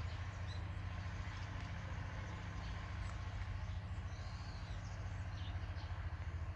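Cat purring close to the microphone: a steady, low, rapidly pulsing rumble.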